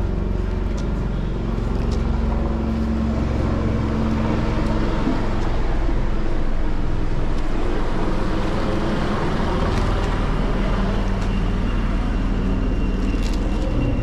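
Busy street traffic noise: motor vehicle engines running steadily, with a faint high whine and a few sharp clicks near the end.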